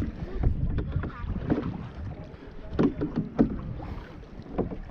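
Canoe paddles dipping and pulling through lake water, about five splashy strokes spaced roughly a second apart, over a steady low rumble of wind on the microphone.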